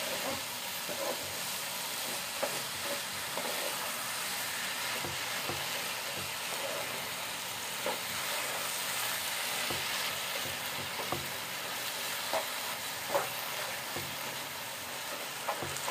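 Grated carrot and sugar sizzling in a nonstick frying pan as they are stirred and scraped with a wooden spatula, with a light knock of the spatula against the pan now and then. The sugar has just melted and drawn water out of the carrots, so the mix sizzles in its own syrup as it cooks down into carrot halwa.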